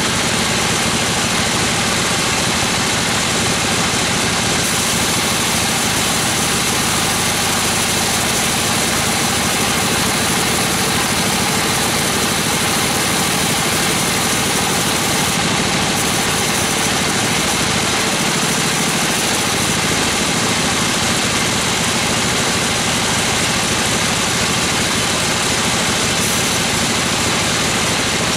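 Sawmill band saw running steadily, its blade cutting lengthwise through gmelina (white teak) timber, with the mill's drive engine running underneath.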